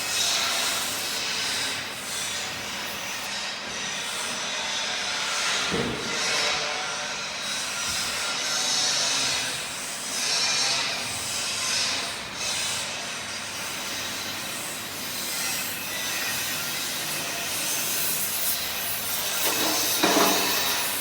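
Stick-welding arc on cast iron with a 3.2 mm cast-iron electrode at about 90 A: a continuous crackling sizzle that swells and dips.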